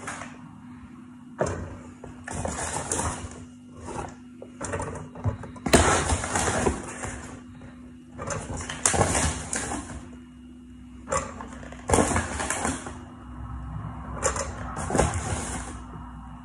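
Metal scoop digging into a plastic tub of cornflour and tipping scoopfuls into a plastic mixing bowl: irregular scrapes, knocks and soft thuds, a few of them sharper. A steady low hum runs underneath.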